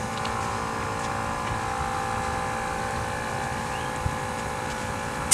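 Portable air compressor running steadily, pumping air through its hose to pressurize the chamber of a PVC potato cannon. A sharp click near the end.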